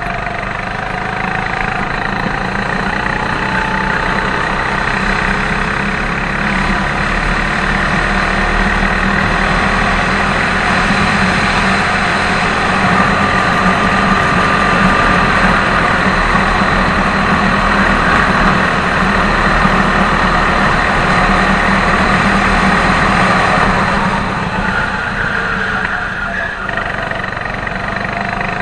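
Go-kart engine running hard, heard from the driver's seat, its pitch rising and falling with the throttle through the corners. It eases off briefly near the end and then picks up again.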